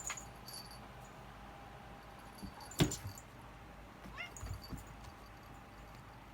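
A domestic cat making a brief, rising chirping call about four seconds in, with a sharp knock a little before it and faint light tinkling.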